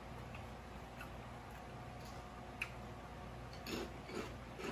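Quiet, scattered wet clicks of chewing, then a few louder crunches near the end as a kettle chip is bitten and chewed.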